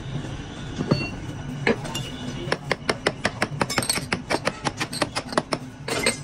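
Steel bar rapping on the metal pattern plate of a sand-casting mould flask: a couple of single knocks, then a quick run of light metallic taps, several a second, from about two and a half seconds in. A steady low machinery hum runs underneath.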